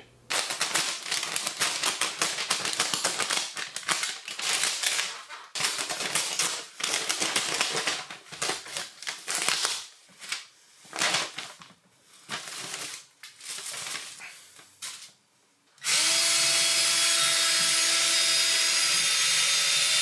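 Plastic vapor barrier and fiberglass insulation being cut and pulled back, crinkling and tearing in uneven bursts. About 16 seconds in, a Ridgid drill starts and runs steadily, boring a pilot hole up through the floor.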